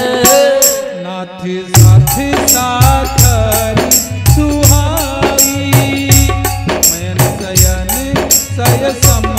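Instrumental devotional ensemble music: a harmonium melody over a dholak and electronic drum-pad rhythm, with a jingling percussion stroke on every beat. The drums drop back briefly about a second in, then come back in strongly.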